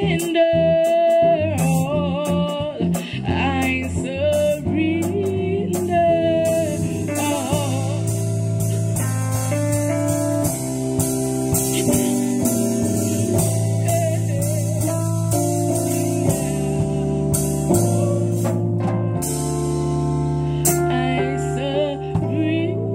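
Live band music: a sung melody over sustained chords and drums with cymbal hits. The voice is clearest in the first seven seconds and again near the end.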